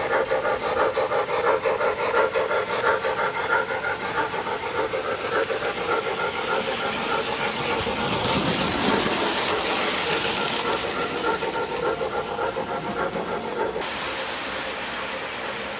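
O gauge model trains running on the layout: a steady humming drone with rapid rhythmic pulsing, then a swelling rumble of wheels on track as a diesel locomotive passes close, peaking about nine seconds in and fading. The sound changes abruptly near the end.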